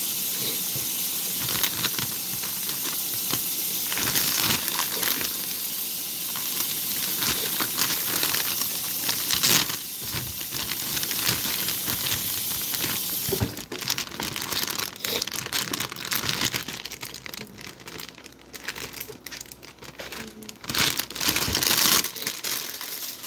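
A steady hiss with crackling that cuts off suddenly a little past halfway, then irregular crinkling and rustling.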